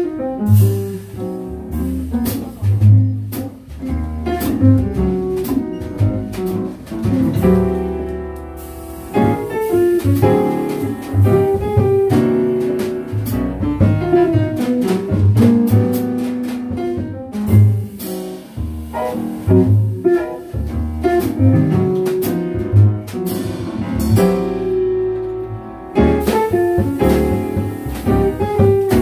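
Jazz quartet playing live: upright double bass, hollow-body electric guitar, piano and drum kit. The cymbals drop out briefly near the end.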